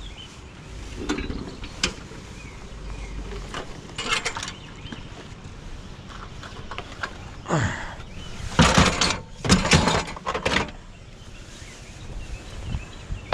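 Junked items being picked up and moved: scattered light knocks and clicks, then several louder scrapes and clatters in the second half.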